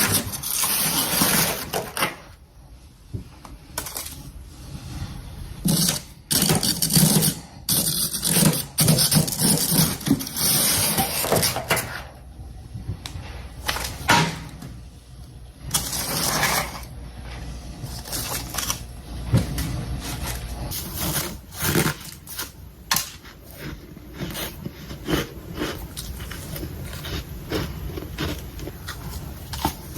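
Freezer frost being bitten and chewed close to the microphone: loud, irregular crunches and cracks, coming in quick runs of short snaps that grow denser in the second half.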